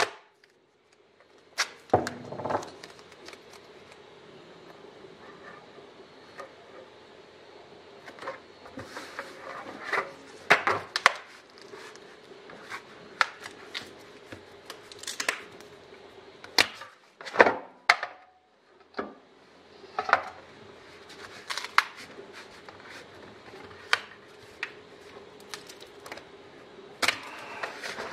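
Thin sheet aluminium (0.016 inch) being rolled by hand around a tube on a wooden bench: scattered clicks, taps and rustles as the sheet flexes and knocks against the bench. A faint steady hum runs underneath.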